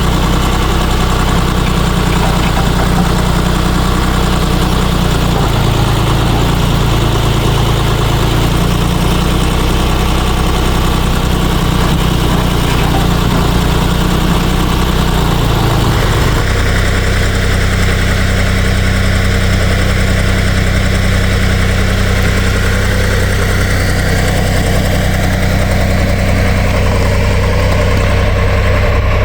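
Ditch Witch trencher's air-cooled three-cylinder Deutz diesel running steadily, its tone shifting a few times in the first half and changing abruptly to a different steady note about halfway through.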